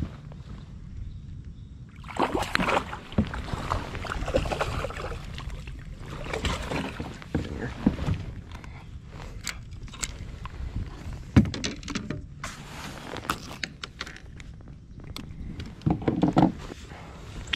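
A hooked bass splashing and thrashing at the side of a fishing kayak, with water sloshing and irregular knocks and clicks against the boat. A louder flurry comes near the end as the fish is lifted aboard.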